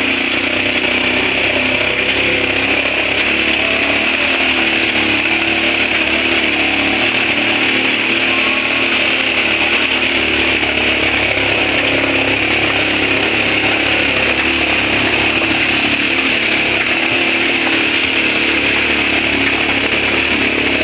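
Motorcycle engine running at a steady speed while the bike is ridden, a constant drone with no change in pitch or level.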